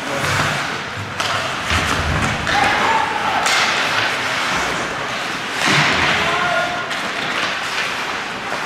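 Live ice hockey play: several sharp knocks of puck, sticks and bodies against the boards, spread over the whole stretch, over the scrape of skates on the ice, with voices calling out.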